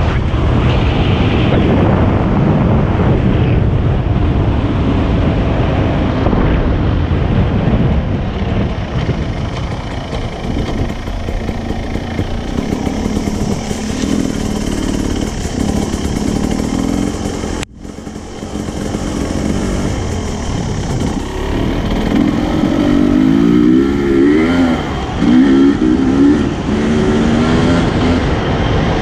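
Dirt bike engine running under way, with heavy wind rush over the first several seconds. Later the engine pitch rises and falls repeatedly as the throttle is worked at lower speed, and the sound cuts out for an instant just past halfway.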